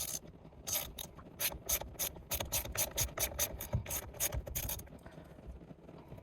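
Ratchet wrench being worked back and forth: a run of quick, even clicks, about four or five a second, starting about a second in and stopping near the five-second mark.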